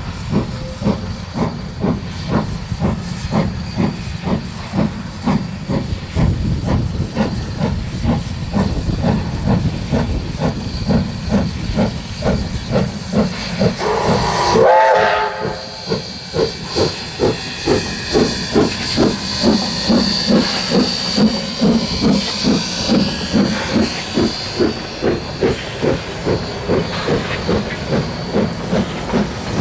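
Steam locomotive A 428 working hard as it passes, its exhaust beating steadily at about two to three chuffs a second. A short whistle blast rises in pitch about halfway through.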